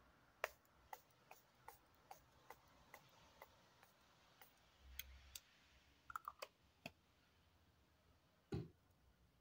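Faint clicks of a facial mist spray bottle's pump being pressed over and over, about two a second at first, then a few scattered clicks; one dull thump near the end.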